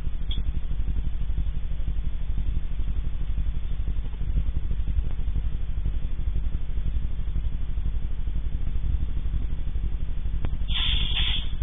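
A steady low hum with a fast, even pulse, heard through a narrow-band microphone. A short burst of hiss comes near the end.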